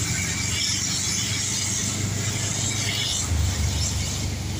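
Moving vehicle driving through heavy rain on a wet road: a steady engine rumble under a constant hiss of rain and tyre spray. The rumble swells briefly a little past three seconds in.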